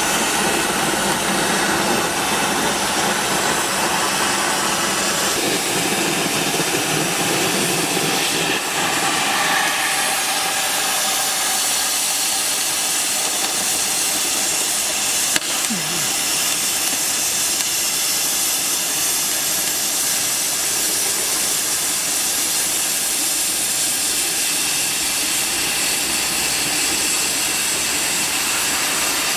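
Oxy-fuel flame cutting torch on a gantry CNC cutting machine, running while it cuts: a loud, steady hiss of the gas jet. One short click about halfway through.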